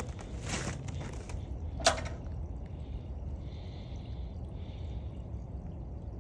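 A crunch in the snow, then a single sharp knock about two seconds in as the dog knocks the plastic cup of frozen water, over a low steady rumble.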